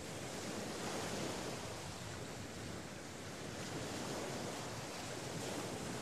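Sea surf washing in, a steady rushing that slowly swells and ebbs: louder about a second in, dipping around the middle, then building again.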